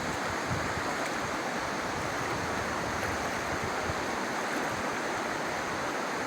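River water rushing: a steady, even noise of the current.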